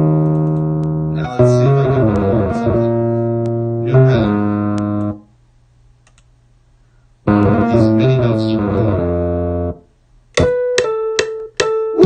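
Electronic pitched tones played by voice through Waves OVox vocal re-synthesis. Held chords change pitch in steps and break off about five seconds in. They come back about two seconds later, and near the end turn into short, sharp plucked stabs.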